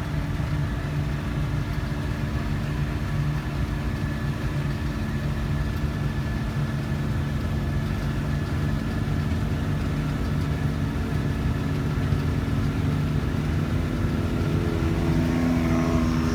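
Side-by-side UTV engine running steadily while driving, a constant drone with no change in speed.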